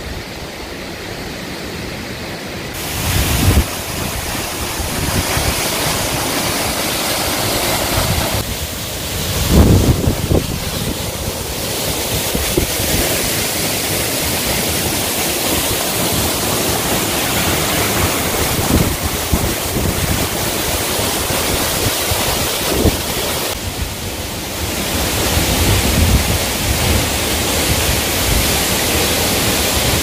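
Waterfall rushing steadily, a loud even roar of falling water that jumps in level a few times and grows louder toward the end. Wind buffets the microphone in low thumps, most strongly a few seconds in and about ten seconds in.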